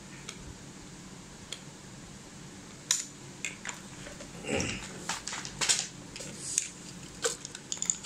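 Small screws and washers rattling in a clear plastic parts box as it is handled and moved aside, with clicks and clatters of plastic and metal parts. Quiet at first, then a quick series of sharp clicks and knocks from about three seconds in.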